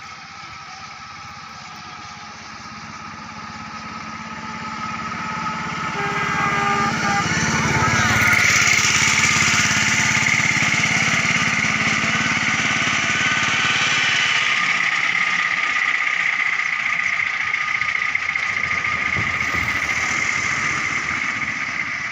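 A motor vehicle's engine grows louder and passes about eight seconds in, its pitch dropping as it goes by; a loud steady rushing noise with a high hiss follows.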